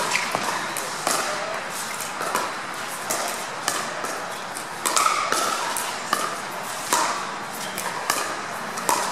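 Pickleball paddles hitting a plastic ball in a quick net rally: a string of sharp pops at uneven spacing.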